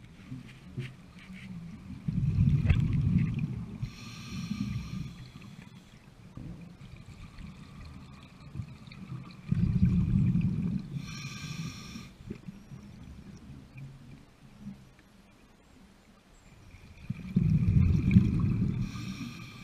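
A scuba diver breathing through a regulator underwater. A low rumble of exhaled bubbles comes about every seven to eight seconds, three times, and each is followed by a short hiss from the regulator on the inhale.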